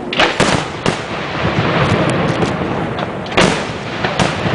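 Aerial firework shells bursting in quick succession: three sharp bangs in the first second and another loud one about three and a half seconds in, over continuous crackling.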